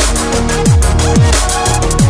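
Electronic background music with a steady beat and deep bass notes that drop in pitch about twice a second.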